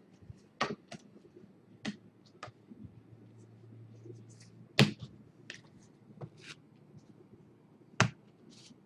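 Hands handling a stack of trading cards: a scattered series of sharp clicks and taps of the cards, the loudest about five seconds in and another near the end.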